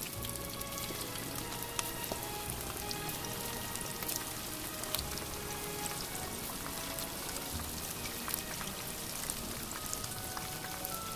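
Starch-coated mackerel pieces deep-frying in hot oil in a pan: a steady sizzle full of fine crackling pops. Background music plays underneath.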